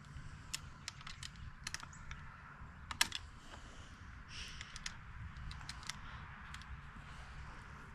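Scattered light clicks and taps of an Allen key and a bicycle mirror's handlebar clamp being worked while the mount is tightened, with one sharper click about three seconds in.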